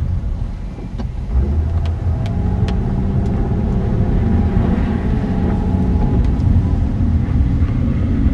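Car driving on a rain-soaked, flooded street, heard from inside the cabin: a steady low rumble of engine, tyres and road with a few short, sharp ticks.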